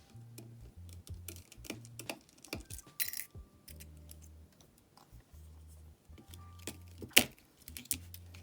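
Quiet background music with a low bass line, over light clicks and taps of small repair tools and screws on the phone; a sharper click about seven seconds in.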